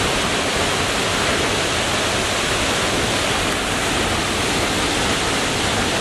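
Shiraito Falls pouring steadily: an even, unbroken rush of falling water.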